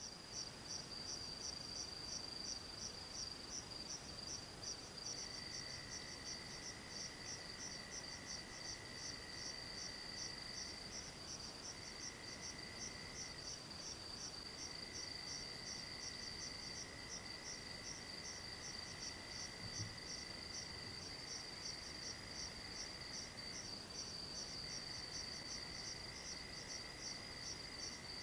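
Several night insects calling together: a steady high-pitched trill with an even, rapid chirping over it, joined about five seconds in by a lower continuous trill that breaks off briefly a few times.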